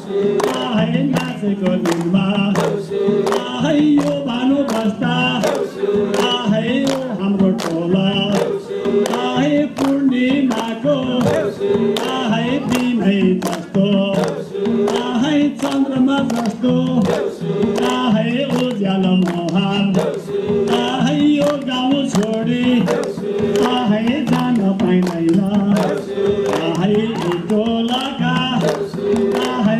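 Group of men singing a Nepali Deusi Tihar song in unison, over a steady beat of hand clapping and a madal drum.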